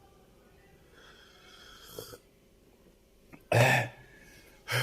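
A man with a bad cough coughing once, hard, about three and a half seconds in, then starting a shorter cough at the end. He is down with a flu-like illness with fever.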